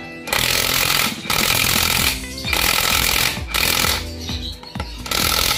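Mailtank 21 V cordless brushless impact wrench hammering on a car wheel's lug nut in about five rapid bursts of roughly a second each, with background music underneath.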